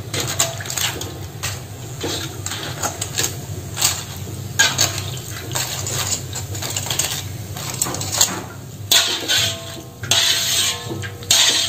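Metal tongs clinking and scraping against an aluminium wok and a wire strainer while lifting crisp fried peanut crackers out of the oil to drain. Many irregular clicks, with a few short scraping rustles, the longest near the end.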